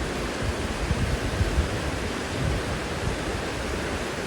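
Steady rush of water from a creek waterfall, with irregular low buffets of wind on the microphone.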